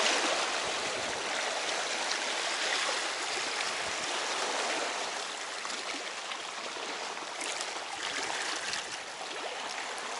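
Small sea waves washing and swirling over shoreline rocks: a steady hiss of moving water.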